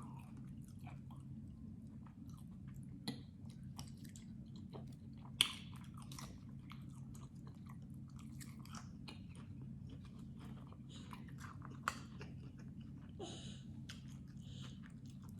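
A person chewing food close to the microphone, with soft wet mouth clicks and a few sharper crunches, over a faint steady low hum.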